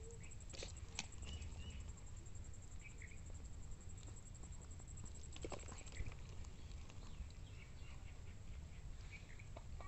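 Quiet outdoor ambience: a steady low rumble with a few soft clicks and taps, and brief faint high chirps.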